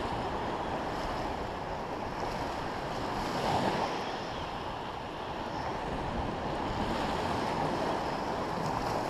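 Ocean surf washing steadily on the beach, with wind buffeting the microphone; one wave swells a little louder about three and a half seconds in.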